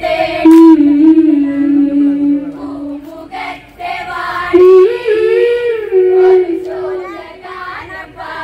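Women singing an Onamkali folk song into microphones, drawing out two long held notes, the second higher and wavering.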